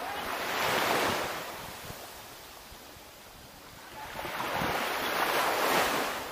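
Small waves washing in over a shallow sandy shore, two swells of hissing water noise that each build and fade over about two seconds, with light wind on the microphone.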